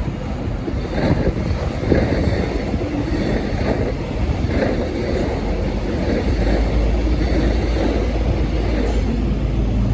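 V/Line N class diesel-electric locomotive running with a steady rumble; about six seconds in a deep low drone comes in and holds, as the engine works harder.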